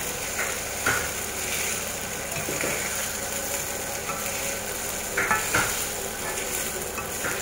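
Fried rice sizzling in a wok on a gas burner while a metal ladle stirs and scrapes through it, with scattered clicks of the ladle against the pan. The rice is starting to scorch on the bottom of the wok.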